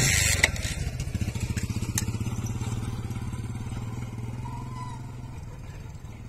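A brief loud rush of noise at the start. Then a motor vehicle engine's low, rapidly pulsing drone follows, slowly fading away. No firecracker goes off.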